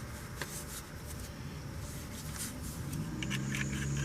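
Rustling, scraping and zipping of clothing and gear as a person gets dressed, with faint ticks and scrapes. A low steady hum comes in near the end.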